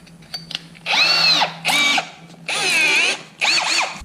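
Power drill with a 1/2-inch bit enlarging a hole in wood, run in four short bursts. The motor's pitch rises and falls with each trigger pull.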